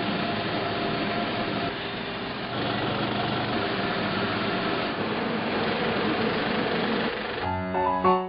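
Film projector running with a steady mechanical whir. About seven and a half seconds in, piano music comes in.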